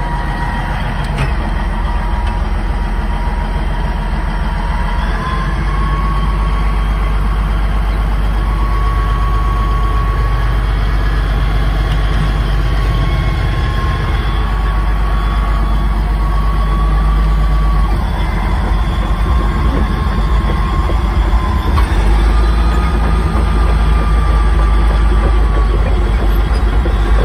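Cat D8 bulldozer's diesel engine running under load, heard from inside the cab: a heavy low rumble with a thin steady whine above it that shifts slightly in pitch several times. It grows somewhat louder in the second half.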